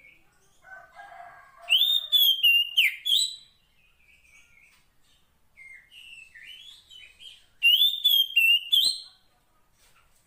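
Female oriental magpie-robin (kacer poci) calling to lure a male. A soft scratchy chatter is followed by two loud bursts of sharp, quick whistled notes about six seconds apart, with quieter whistles in between.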